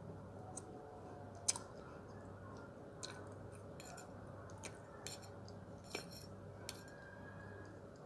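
A metal spoon clinks and scrapes a few times against a stemmed glass dessert glass, the sharpest clink about one and a half seconds in. Between the clinks are soft mouth sounds of eating wet brown clay, which has no crunch because it is mixed with water.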